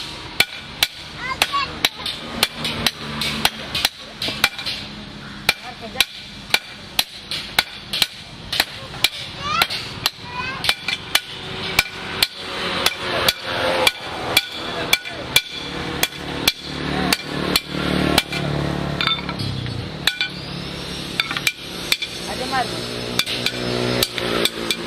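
A blacksmith's hand hammer striking metal on an anvil in a steady rhythm, about two blows a second, each with a short metallic ring.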